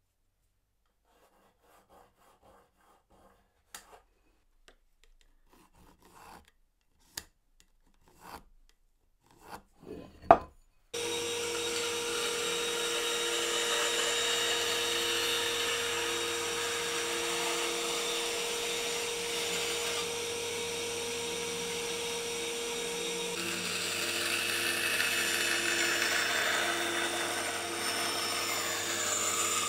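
A few faint scratches and sharp taps, the loudest knock just after ten seconds in. Then, from about eleven seconds, a bandsaw runs with a steady motor hum while its blade hisses through 18 mm plywood, cutting rounded corners.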